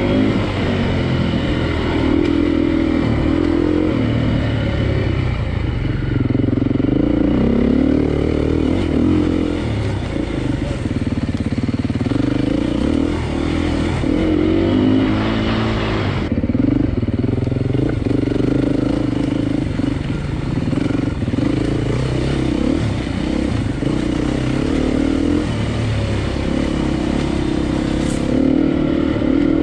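Vintage vehicle engine running under way, its pitch rising and falling with changes in throttle and gear. A short rush of noise about halfway through.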